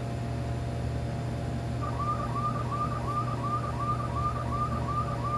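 Steady low hum, with a short high chirp repeating about three times a second from about two seconds in.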